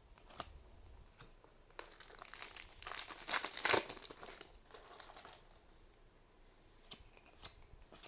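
Foil trading-card booster pack wrapper crinkling and tearing as it is handled, loudest in the middle, with a few light clicks of cards being handled before and after.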